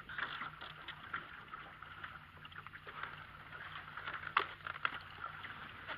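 A boat motor running steadily at low trolling speed, a low hum under the hiss of wind and water, with a couple of sharp knocks about four and a half seconds in.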